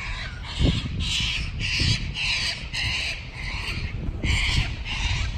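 Parrots giving harsh, raucous screeches over and over, about two calls a second.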